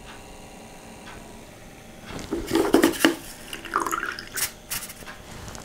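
Water splashing and dripping as small wet plastic diamond-painting drills are rinsed and handled, loudest about two to three seconds in, over a faint steady hum.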